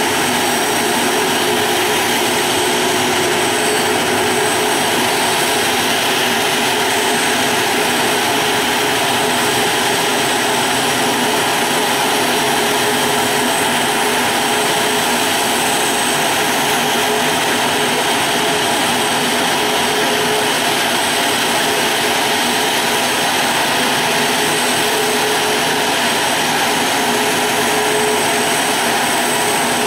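Boeing 737-500's CFM56-3 turbofan engines running steadily after start, a constant high whine over a steady rush of jet noise with no spool-up or change in pitch.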